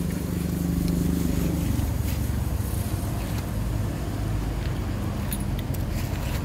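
A low, steady engine hum runs throughout, dropping in pitch a little under two seconds in. A few faint clicks sound over it.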